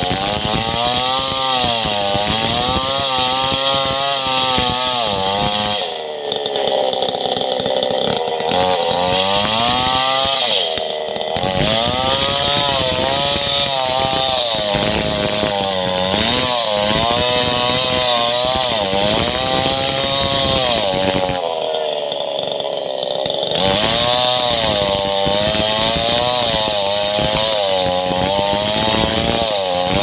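Two-stroke chainsaw ripping a log lengthwise into planks. Its engine pitch rises and falls continuously as it cuts, and twice dips lower for a couple of seconds.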